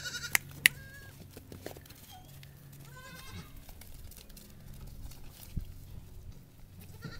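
Livestock bleating in short calls: one right at the start, a longer wavering one about three seconds in and a brief one near the end, over a low steady hum.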